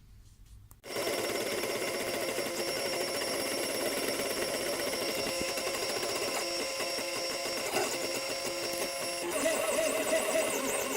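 3D printer's stepper motors whining as the print head moves, several steady tones at once that switch to new pitches as the moves change. It starts suddenly about a second in.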